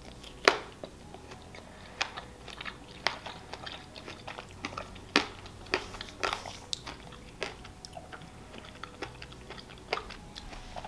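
Close-miked chewing of a chocolate-covered strawberry: irregular wet mouth clicks and smacks, the sharpest about half a second in.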